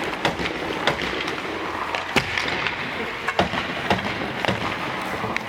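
Ice hockey sticks striking pucks, with pucks clacking off sticks, pads and boards, over the steady noise of an ice rink. The sharp clacks come at irregular moments, about eight in all; the loudest is about two seconds in, and several come close together a little after three seconds.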